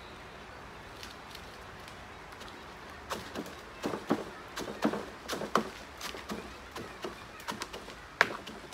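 Wooden stick jabbed repeatedly into potting soil in a plastic pot, packing the soil in around the plants: irregular knocks and scrapes, several a second, starting about three seconds in, with one sharper knock near the end.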